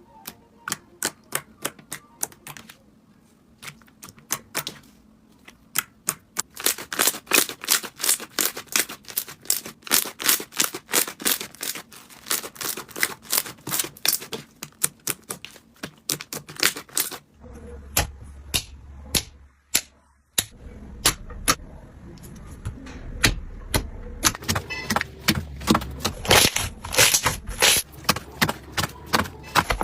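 Slime being squeezed and worked by hand, giving a quick series of crisp clicks and pops, a few a second. A low hum comes in behind the clicks about two-thirds of the way through.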